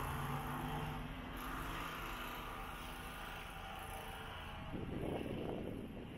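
City street traffic: vehicles running past with a steady low engine and road noise, swelling briefly louder about five seconds in.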